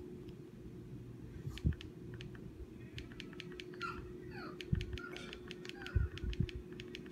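Rapid plastic button clicks, many in quick succession and thickest in the second half, from the pointer control clicking OK on crash dialogs that keep reappearing. A few dull knocks and a steady low hum run underneath.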